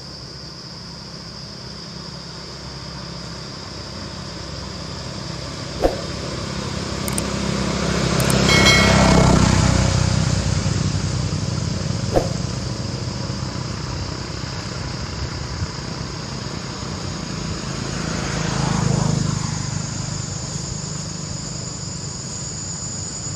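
A steady high-pitched insect drone runs under a motor engine that swells and fades twice, loudest about nine seconds in and again near nineteen seconds, like a vehicle passing. Two sharp clicks come about six and twelve seconds in.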